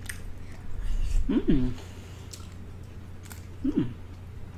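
Close-miked eating of boiled crawfish: faint wet clicks and smacks, with two short hummed "mm" sounds, one about a second and a half in and one near the end.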